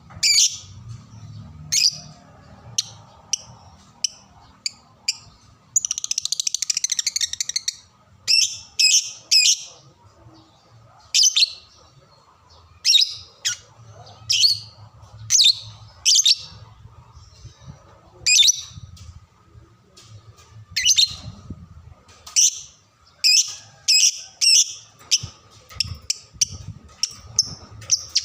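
Lovebird calling: a string of short, sharp, high chirps with gaps between them, a rapid chattering trill about six seconds in, and quicker runs of chirps near the end.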